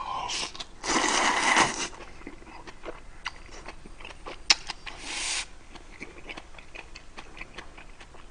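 A person slurping spicy Jjapaghetti noodles, with a loud slurp about a second in, then chewing with a mouth full of noodles and small wet clicks and smacks. A sharp click comes about four and a half seconds in.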